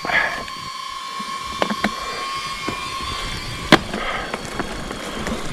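Thin branches and twigs cracking and snapping as they strike and break, with brief leafy swishes; about six sharp cracks, the loudest nearly four seconds in. A steady high whine runs underneath and stops a little past halfway.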